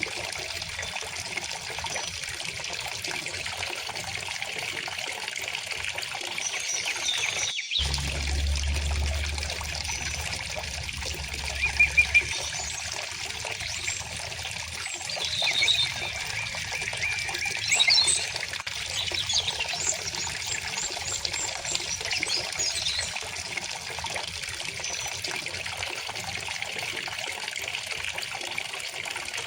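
River water trickling and flowing steadily, with small birds chirping and singing over it. A few louder chirps come about twelve seconds in, and there is a run of birdsong in the second half. The sound drops out briefly about eight seconds in, followed by a low rumble for a few seconds.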